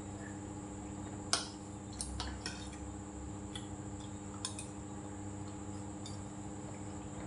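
Metal spoon clinking and tapping against dishes, about seven sharp clicks, the loudest about a second in.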